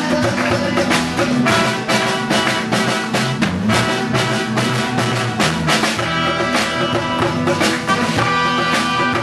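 Live band playing a song, with drum kit and guitar.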